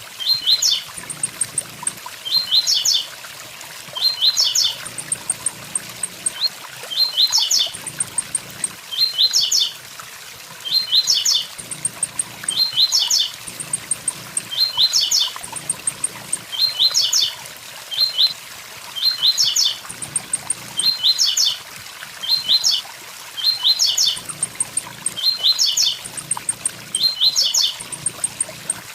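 Blue-black grassquit (tiziu) singing its short 'tui tui zel zel' phrase of a few quick, high notes, repeated about every two seconds, over the steady rush of a waterfall.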